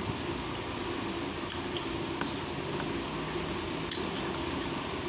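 Steady electric fan hum in a small room, with a few faint short clicks.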